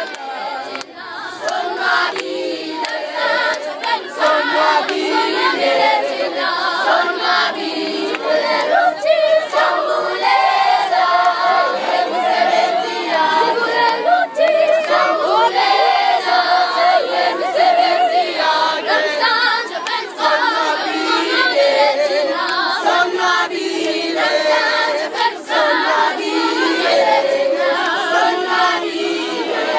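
A group of schoolchildren singing together, many voices at once, swelling over the first couple of seconds and then carrying on steadily.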